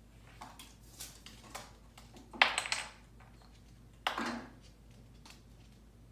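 African grey parrot hammering and clattering small wooden toy pieces against the wooden play stand and floor: scattered light wooden taps, then two louder bursts of rapid knocking, a little over two seconds in and again about four seconds in.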